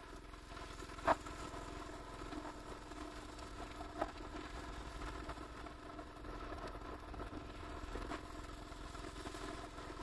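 Pressure washer running with a steady hum and spray hiss as its lance washes a metal road sign, with a few short sharp clicks about a second in and again around four and eight seconds.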